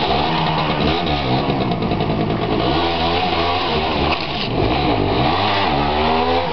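MZ 150 motorcycle's single-cylinder two-stroke engine being revved up and down repeatedly, its pitch rising and falling several times, as it is ridden hard into a wheelie near the end.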